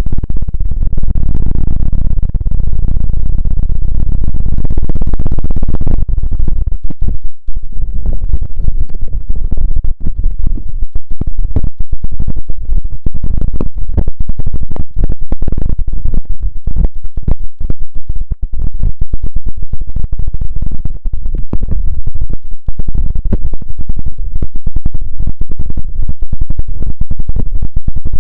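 Close-miked ASMR scratching and rubbing sounds, very loud and heavy in the low end: a dense rumbling sweep at first, then from about six seconds in rapid scratching strokes many times a second.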